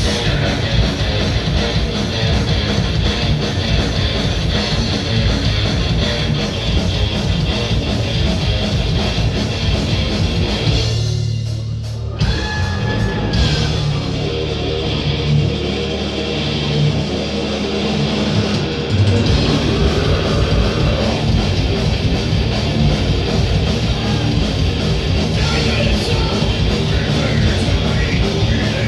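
A live rock band playing loudly, with electric guitar prominent. About eleven seconds in, the high, bright part of the sound drops away and mostly the low end carries on for several seconds. Then the full band comes back in.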